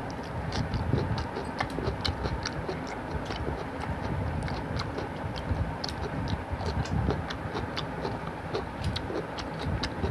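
Close-miked eating by hand: irregular wet clicks and smacks, several a second, from chewing and fingers working rice and fish curry on a steel plate, over a low rumble.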